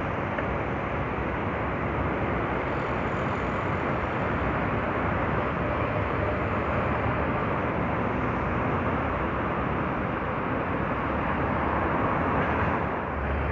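Steady city road-traffic noise from buses and cars, an even rumble with no single event standing out.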